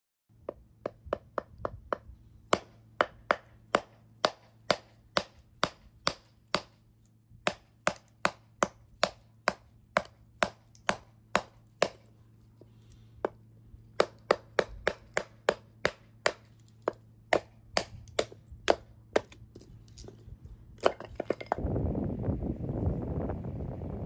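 A folding knife wedged in a block of wood and knocked down on a wooden board: a long run of sharp knocks, about two a second, with a short pause about halfway. Near the end the knocks stop and a steady rushing noise takes over.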